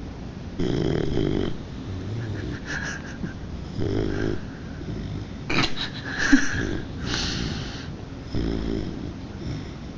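Three-month-old Dogue de Bordeaux puppy snoring in its sleep: a rumbling snore on each breath every couple of seconds, some breaths with a wheezy whistle.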